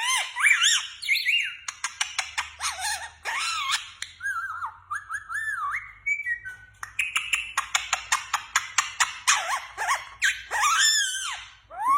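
Pet parrot whistling and chirping in quick rising and falling notes, mixed with rapid runs of clicking kissing sounds.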